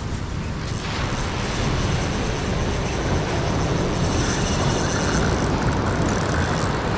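Wind buffeting the microphone over the sound of surf: a steady rushing noise with a heavy low rumble that grows a little louder about a second in.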